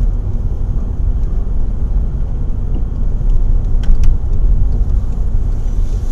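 Steady low road and engine rumble inside a moving car's cabin, with a couple of short clicks about four seconds in.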